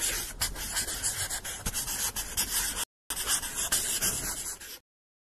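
Pen scratching on paper in two spells of writing, with a brief break about three seconds in and a sudden stop near the end.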